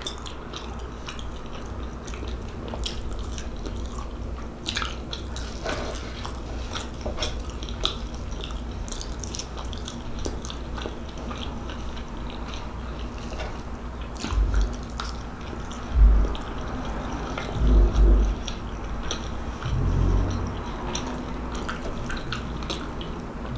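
Close-miked chewing of a mouthful of meatloaf, with many small wet mouth clicks and smacks. A few low thumps come in the second half.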